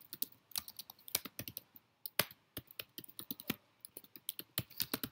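Typing on a computer keyboard: quick, irregular keystrokes, a short pause about a second and a half in, then another run of keys.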